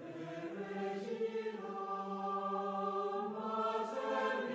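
Slow sacred vocal music of a chant-like choir, with voices holding long notes that change every second or so.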